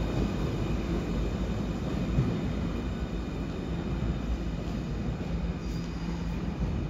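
Munich U-Bahn Type C2 train running on its rails: a steady rumble of wheels and running gear with a faint, steady high whine from the drive, slowly getting a little quieter.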